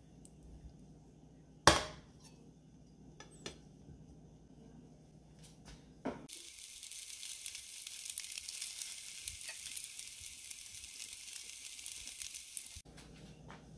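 A sharp knock of a bowl of rice set onto a ceramic plate, followed by a few light taps. Then a steady high sizzling hiss lasts about six seconds, starting and stopping abruptly.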